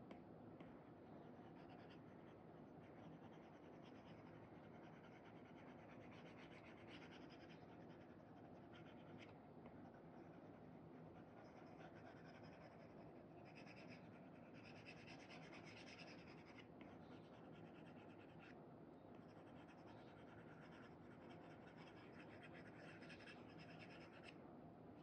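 Faint scratching of an Apple Pencil 2 tip (Elecom nib) dragging across an iPad's paper-feel screen protector as strokes are painted, coming in short irregular runs. A low steady room hum lies underneath.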